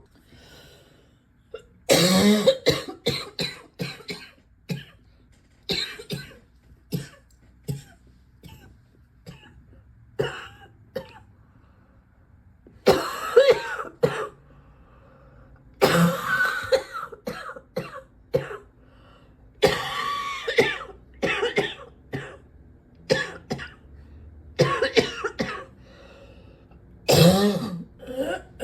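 A person coughing a gross-sounding cough, over and over: single coughs and short strings of coughs every second or two, broken by longer fits of about a second and a half, about two seconds in and again near the middle and near the end.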